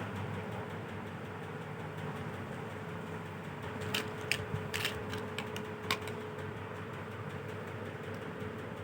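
A few light clicks of plastic toy figures being handled, bunched together in the middle, over a steady background hum with a faint steady tone.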